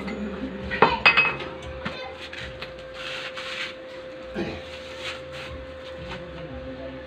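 Sharp metal clanks and clinks from work on a steel wire-mesh door, the two loudest close together about a second in, then lighter knocks, over a faint steady hum.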